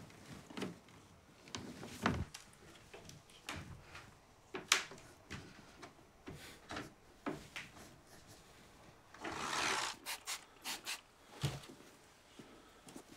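A cloth rubbing and wiping the polished wooden case of a piano in short, irregular strokes, with light knocks of handling. About nine seconds in there is one longer wipe, followed by a quick run of short strokes.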